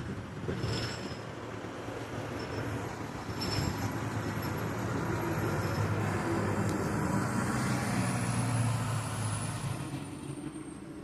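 A steady low rumble that swells through the middle, with a faint high whistle rising and then falling near the end.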